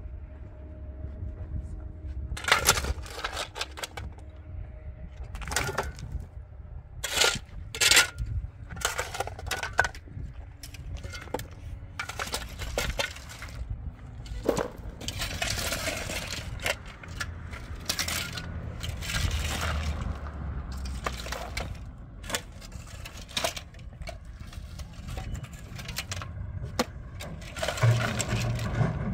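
Rocks and rubble shovelled into a steel wheelbarrow: stones clatter and clink irregularly as they land in the metal tray, and shovel blades scrape through the gravel.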